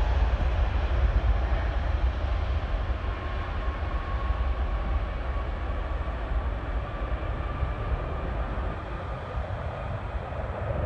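Airbus A380's four jet engines at takeoff thrust, a deep steady rumble with a faint whine, slowly fading as the jet rolls away down the runway.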